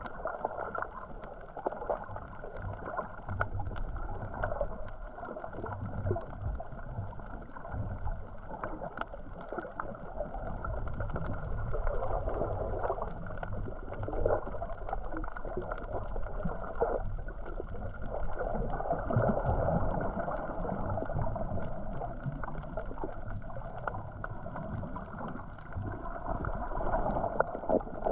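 Muffled water sloshing and gurgling around a submerged or half-submerged action camera. The noise swells and fades unevenly, with no steady tones.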